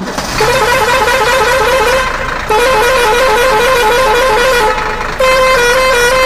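Musical vehicle horn playing a quick tune of short notes stepping up in pitch, repeated over and over with a short break, then a run of longer held notes near the end.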